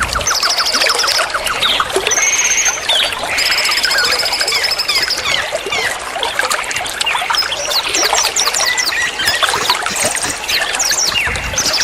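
A dense chorus of many songbirds chirping and trilling over trickling water, with repeated rapid trills and quick falling whistle notes.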